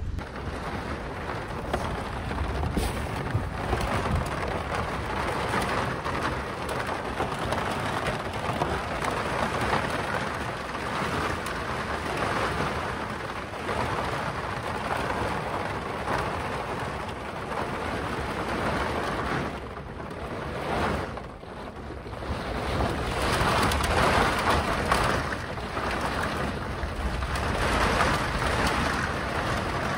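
Heavy thunderstorm rain pouring down: a dense, steady hiss with a low rumble under it. It eases for a moment about twenty seconds in, then comes back harder.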